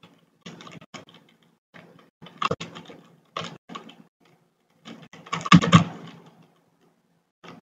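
Typing on a computer keyboard in irregular bursts of keystrokes, the loudest flurry about five and a half seconds in.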